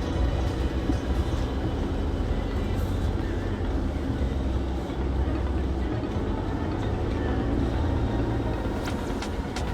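Jeep engine running at low speed with a steady low rumble, heard from inside the cab as it crawls over a rocky trail.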